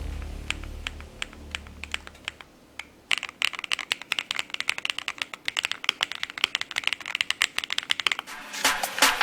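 Typing on a Dareu Ultra75 Hall-effect keyboard: a few scattered keystrokes at first, then fast, continuous typing from about three seconds in. A bass music note fades out at the start, and electronic music comes back near the end.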